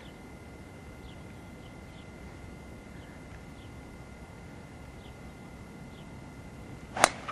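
Quiet open-air background, then about seven seconds in a single sharp crack of a golf club striking the ball on a tee shot.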